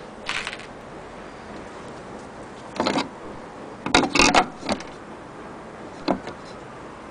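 A few scattered knocks and light metallic clatters, the loudest a cluster about four seconds in, with single knocks near the start and about six seconds in.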